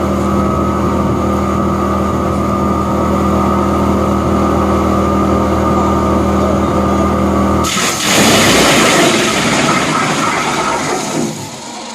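Wood chipper engine running steadily at constant speed, cut off suddenly about eight seconds in. A loud hissing rush follows for a few seconds, then fades.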